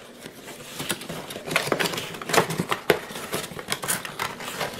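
Cardboard retail box being opened by hand: its flaps and paperboard insert scraping, crinkling and tapping in an irregular run of clicks and rustles.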